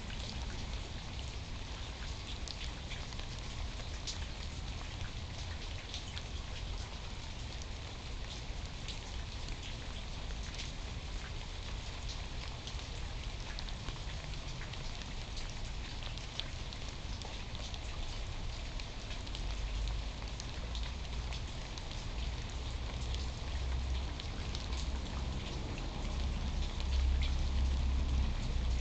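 Steady rain falling, with many individual drops ticking sharply close by. A low rumble swells in the second half and is loudest near the end.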